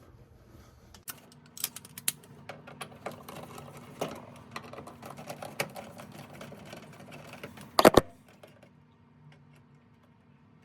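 Clicking and rattling as a metal electrical junction box is unscrewed and its cover taken off, ending in a loud double clack near the eight-second mark.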